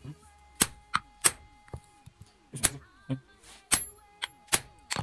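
About ten sharp, irregularly spaced knocks and clicks with a bright metallic ring, as a handle slab of antler is set and shifted against a steel hatchet head resting on a wooden chopping block.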